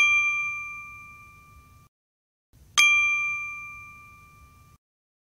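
Two bell-like ding sound effects about three seconds apart, each struck sharply and ringing out with several tones over about two seconds.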